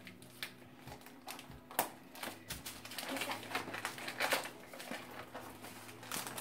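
Gift-wrapping paper being torn and crinkled by hand as a small present is unwrapped: an irregular run of sharp crackles and rips. A faint steady low hum runs beneath.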